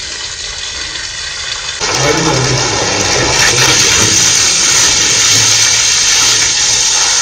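Water gushing out of a borewell submersible pump's delivery pipe. The rush jumps suddenly louder about two seconds in and stays strong, with a low hum underneath.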